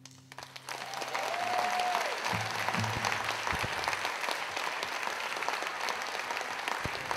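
Audience applauding as an acoustic song ends, the last acoustic guitar chord dying away as the clapping starts within the first second.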